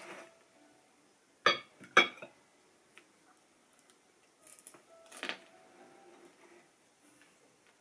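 A ceramic bowl set down on a table, two sharp clinks about half a second apart, followed a few seconds later by a softer scuffing sound.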